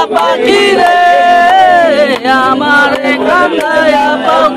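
Men singing a Bangla song together without clear words spoken, a lead voice holding long notes that bend and slide down in pitch.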